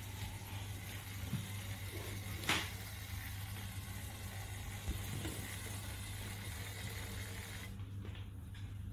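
LEGO WeDo 2.0 robot's small electric motor running steadily, with one sharp click about two and a half seconds in.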